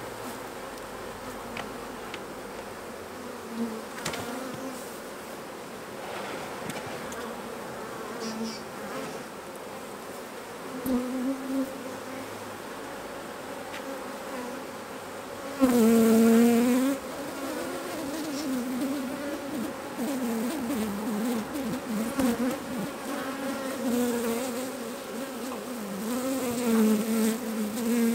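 Honey bees buzzing over an opened hive. Single bees fly close past the microphone with a wavering hum that rises and falls in pitch, loudest about halfway through, and the buzzing grows busier near the end.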